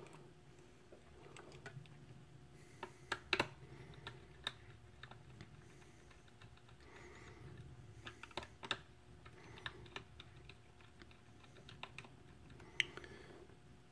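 Faint, irregular small clicks and taps of fingers handling a plastic battery-compartment housing and working stripped wires into a screw terminal block, with a few sharper clicks about three seconds in and near the end.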